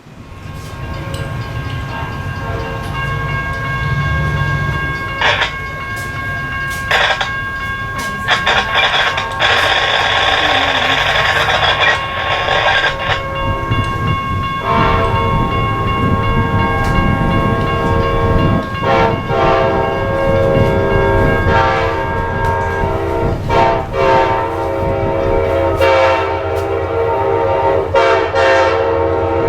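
Train passing at close range: the locomotive's air horn sounds repeatedly, in several blasts and then a longer sequence broken by short gaps, over a steady low rumble of engine and wheels.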